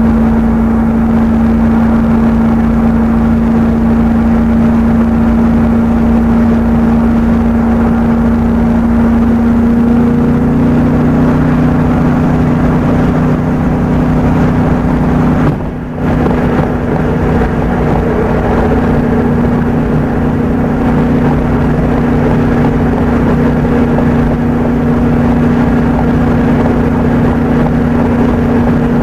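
Steady engine and tyre noise inside a car cruising on a highway, played back at double speed so the hum sits higher than normal. A second, lower tone joins the hum about ten seconds in, and the sound drops briefly about sixteen seconds in.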